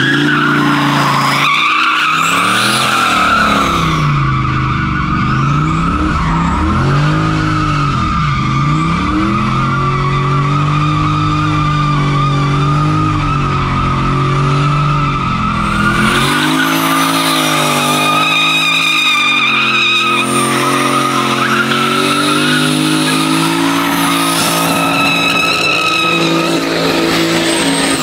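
Turbocharged LS V8 in a Nissan 350Z drift car revving up and down over and over while its rear tyres squeal without a break through donuts.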